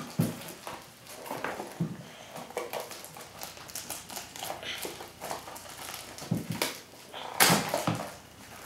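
Small cardboard blind box being handled and pried at by a child's hands: scattered clicks and rustles, with a louder rasp of packaging about seven and a half seconds in.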